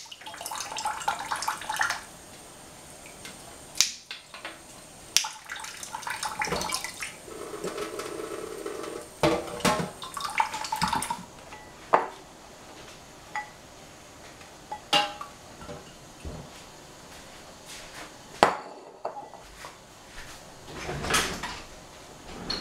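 A ceramic bowl and a small steel saucepan handled in a stainless steel kitchen sink: scattered clinks and knocks, about eight sharp ones, with stretches of water splashing between them.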